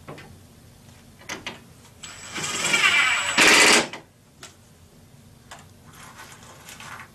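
Cordless impact driver driving a small pan-head screw through a metal cabinet clip into plywood. About two seconds in the motor spins with a high whine for over a second, then it hammers in a loud rapid rattle for about half a second as the screw snugs up, and stops suddenly.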